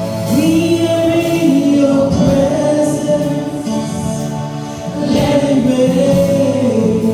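Gospel singing with instrumental accompaniment: voices holding long notes over steady chords.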